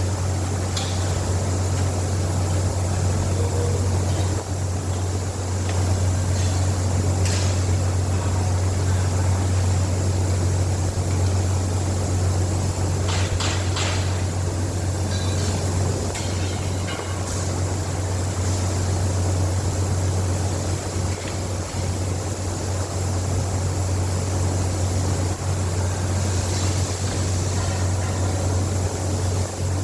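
A steady low hum over a constant hiss, with a few brief clicks or clinks.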